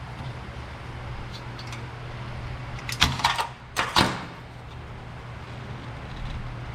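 Sharp knocks and a brief rattle of sheet metal, a cluster about three seconds in and a single loud knock about a second later, as the steel lower windshield panel is shifted and bumped against the car body during test-fitting, over a steady low hum.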